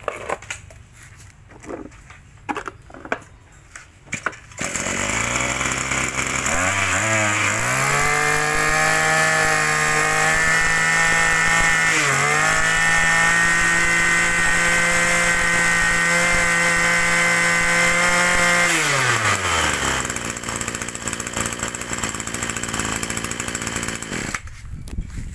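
Yanmar 26cc two-stroke brush cutter engine starting about four and a half seconds in after a few light knocks. It revs up to a steady high speed, holds there for about eleven seconds with one brief dip, drops back to idle, and is switched off near the end.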